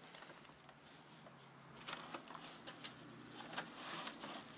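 Plastic carrier bag rustling and crinkling as it is handled and pulled open, a run of short, irregular crackles that gets busier about two seconds in.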